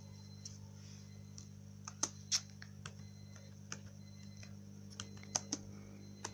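Laptop keyboard being typed on slowly, single keystrokes clicking at uneven intervals, a few louder taps around two seconds and five seconds in. A steady low hum runs underneath.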